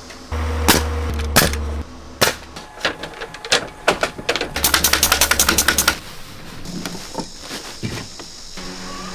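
Carpentry work on timber: a few sharp knocks, then a fast run of taps, about ten a second, for just over a second, over a low machine hum.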